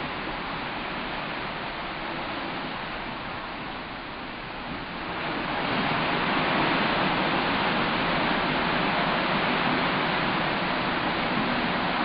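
Steady rushing of sea water along the side of a cruise ship, growing louder about five seconds in.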